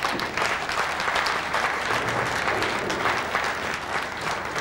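Audience applauding with many rapid overlapping hand-claps, steady throughout.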